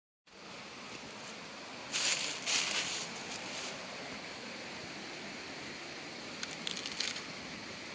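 Steady rush of a shallow mountain stream, with crackling of dry fallen leaves underfoot about two seconds in and again near the end.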